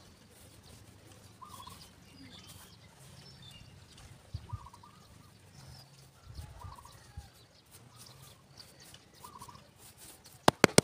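A hand rubbing and pressing loose dry soil, with faint scraping, while short animal calls, fowl-like, come about every two seconds. Near the end a quick run of loud slaps begins as the hand pats the soil down.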